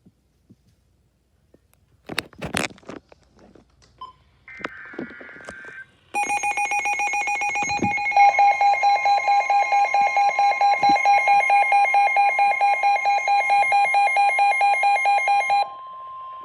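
Emergency alert for a severe thunderstorm warning: a few clicks, a brief burst of warbling data tones (the coded alert header), then a loud, rapidly pulsing alarm beep with a steady warning tone joining about two seconds later. The pulsing stops just before the end and the steady tone outlasts it briefly.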